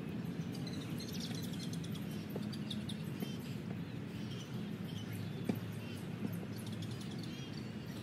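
Small birds chirping and twittering in quick, short calls over a steady low background rumble, with a couple of faint taps.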